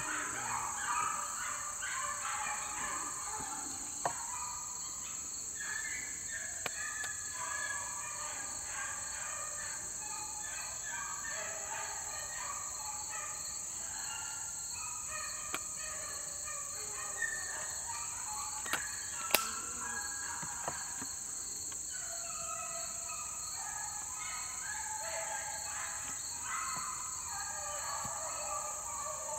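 A pack of young beagles baying as they run a rabbit, many short voices overlapping throughout, over a steady high drone of insects. A sharp tick sounds about two-thirds of the way through.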